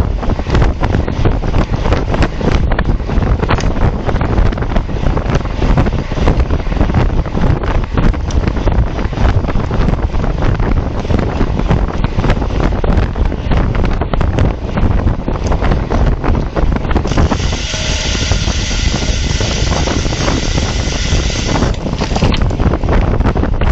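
Wind buffeting the microphone of a camera mounted on a road bike at racing speed, a loud, steady rush. About 17 seconds in, a steady higher buzz joins it for roughly four seconds.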